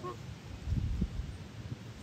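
A goose gives a short honk right at the start, followed by a louder low rumble about half a second to a second in.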